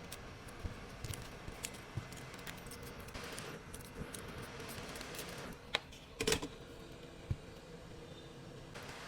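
Small repair tools clicking and tapping against a phone, with a louder clatter about six seconds in, over a steady hum.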